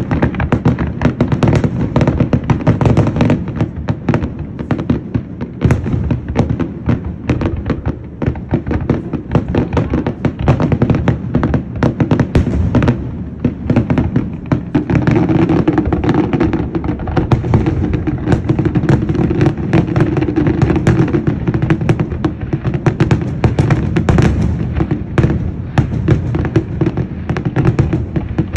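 Fireworks display: aerial shells bursting in quick succession, a dense, continuous barrage of bangs and crackle.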